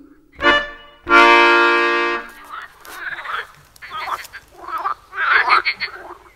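The band's last held chord, then a frog croaking: about five rough, pulsing croaks roughly a second apart that grow louder toward the end.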